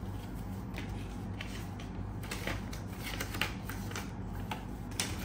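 Folded paper instruction leaflet being unfolded and handled: a run of crisp paper rustles and crackles, sharpest about three and a half seconds in and again just before the end, over a steady low hum.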